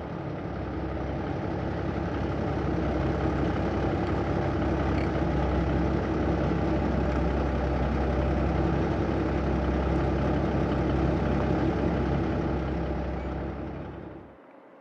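A steady motor hum with a deep low drone, holding evenly, then winding down and stopping about fourteen seconds in.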